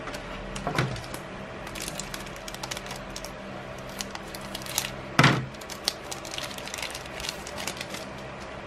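Foil booster-pack wrapper crinkling and crackling as it is cut open with scissors and the cards are slid out, a quick run of small crisp clicks with one louder crackle about five seconds in.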